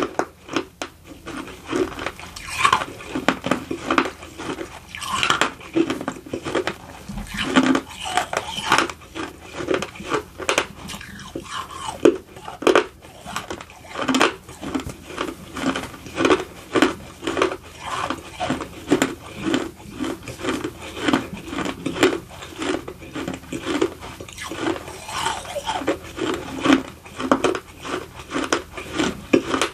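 Close-up chewing of baked edible clay: a steady run of crisp crunching chews, one or two a second.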